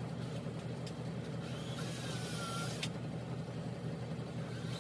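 Steady low background hum with a few faint light clicks and a brief faint gliding tone about two seconds in.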